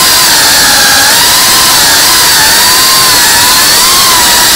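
FPV quadcopter's motors and propellers whining loudly under a dense hiss, the pitch wavering up and down as the throttle changes.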